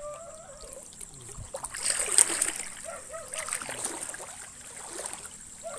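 Shallow river water splashing and trickling, with the loudest splash about two seconds in.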